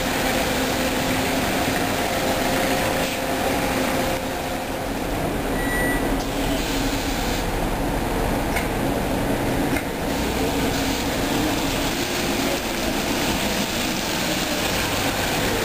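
Trolleybuses running on a wet city street: a steady mix of electric drive hum and tyre noise, with an Irisbus Cristalis trolleybus passing close near the end.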